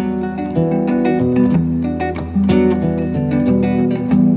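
An archtop hollow-body electric guitar and an acoustic guitar playing together in an instrumental passage, with a stream of picked notes over chords.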